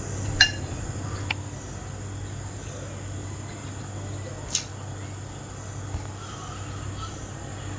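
Steady high-pitched insect chirring over a low hum, with a few faint clicks and taps.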